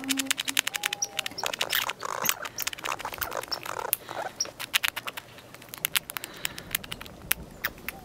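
Squirrel chattering sound effect: a rapid run of sharp, dry clicks and short chirps, dense at first and thinning out over the last couple of seconds.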